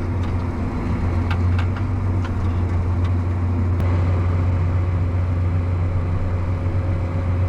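Farm tractor's diesel engine running steadily under load, a constant low drone heard from inside the cab, with a few faint light clicks in the first few seconds.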